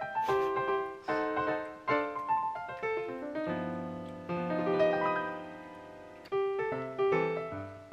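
Background music: a light piano tune of struck notes and chords.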